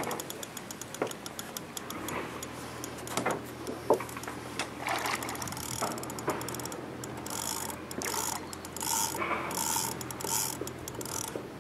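Fishing reel clicking: a fast, steady run of ratchet-like ticks, thicker in the second half.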